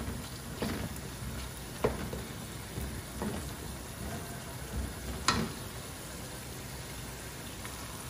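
Thick tomato sauce with potatoes sizzling and bubbling in a metal pot while a wooden spatula stirs it, knocking against the pot several times, loudest about five seconds in.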